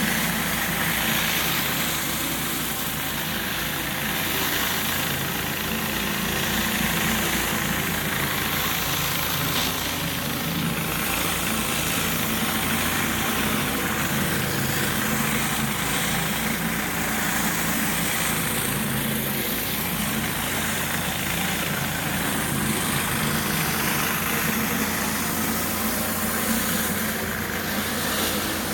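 Pressure washer's engine running steadily under load, with a constant hiss over it.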